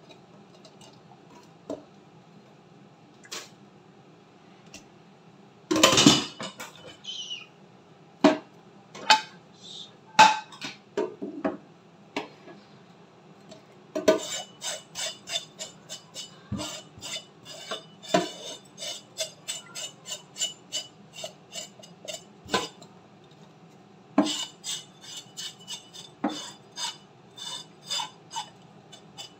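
Kitchen knife scraping the skin of a whole fish in a stainless steel sink, in quick repeated strokes of about three or four a second, pausing briefly partway through. Earlier there are scattered knocks and one loud metallic clatter about six seconds in.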